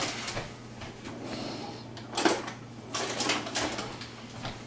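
A plastic snack-chip bag being handled and worked at while someone tries to tear it open: intermittent crinkling, with a sharp knock about two seconds in. A low steady hum runs underneath.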